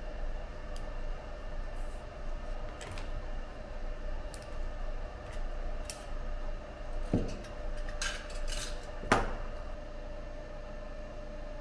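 Hands and pliers stripping cylindrical mortar specimens from their molds: scattered light clicks and scrapes, then two sharper knocks in the second half, the later one the loudest, over a steady hum.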